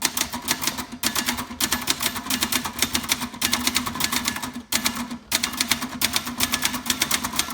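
Brother Charger 11 manual portable typewriter being typed on at speed: a quick, crisp run of keystrokes, several a second, as the typebars snap against the paper, with a few brief pauses between words.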